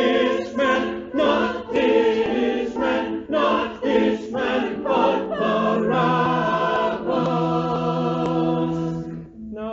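Church choir singing a crowd chorus of a Passion setting in short accented phrases, then settling on a long held chord that cuts off about nine seconds in.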